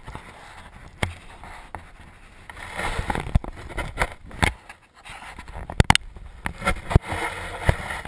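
Handling noise from the camera being picked up, moved and set down: rubbing and scraping with many sharp knocks and clicks against its case.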